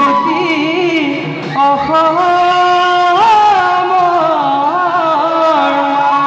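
Assamese folk ensemble playing live: a pipe carries a melody of long held notes with slides and ornaments over a steady beat on hand-played barrel drums (dhol), with a brief break in the melody about one and a half seconds in.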